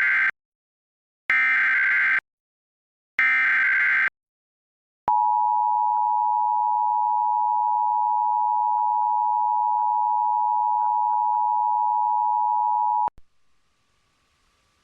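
Emergency Alert System tones from a TV broadcast: three bursts of high, warbling SAME header data, the first already under way, then the steady two-tone attention signal (853 and 960 Hz) for about eight seconds, cutting off abruptly. The tones open a child-abduction AMBER Alert.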